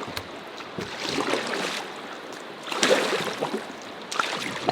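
Paddle strokes pulling a small boat through the water, a swish and splash with each stroke, three strokes about a second and a half apart.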